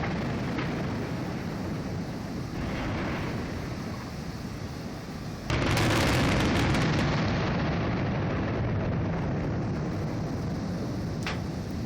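Aerial firework shells bursting: a continuous low rumble of reports, with one loud boom about five and a half seconds in that rolls away slowly, and a sharp crack near the end.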